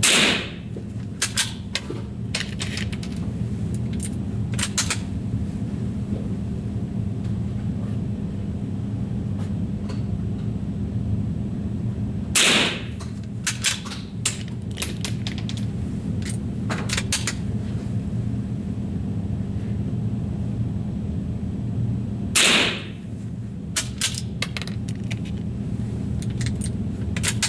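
Rifle fired three times, about ten seconds apart: one shot at the start, one about twelve seconds in and one about twenty-two seconds in. Each shot is followed by a few sharp clicks, over a steady low hum.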